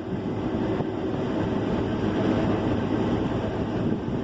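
Combine harvester running steadily while cutting wheat, an even machine drone with no changes.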